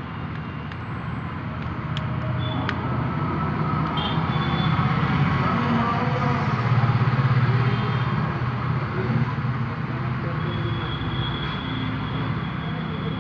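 Road traffic noise: a steady low engine rumble that swells to its loudest about seven seconds in and eases off again, with a few faint clicks.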